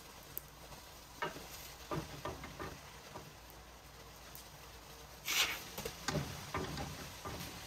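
Puffed flatbread being handled on a hot pan: scattered light taps and knocks, with a short hiss about five seconds in, the loudest sound.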